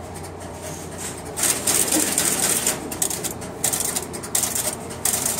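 Banks of wire-spring relays in a Western Electric No. 5 Crossbar telephone switch chattering in rapid, irregular bursts of clicks, starting about a second and a half in, as the incoming register stores and passes on dialed digits. A steady low electrical hum runs underneath.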